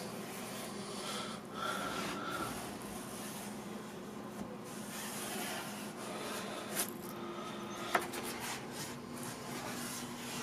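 Small wheeled iMac opening tool, pizza-cutter style, being run along the edge of the glass display to cut through the adhesive: a soft, steady scraping, with a couple of sharp clicks in the second half.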